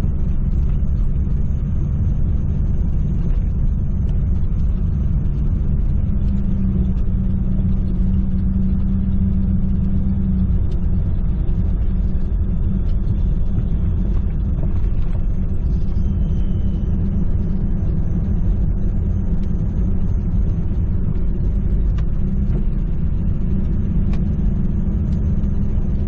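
1998 Jeep Cherokee XJ driving along: a steady, low engine and road rumble.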